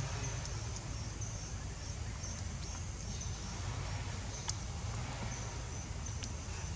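Insects trilling in short, on-and-off patches, high-pitched, over a steady low rumble, with a few faint sharp clicks.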